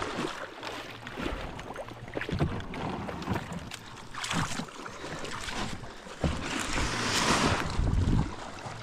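Water sloshing and knocks from a plastic folding kayak being run ashore and climbed out of, with a louder scraping rush about six seconds in that lasts a couple of seconds.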